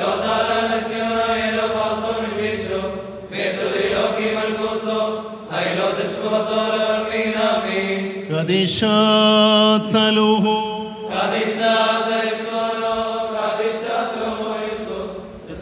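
Liturgical chanting of Syriac evening prayer, sung in phrases a few seconds long. About halfway through the chant swells into a louder, higher, wavering passage for a few seconds before settling back.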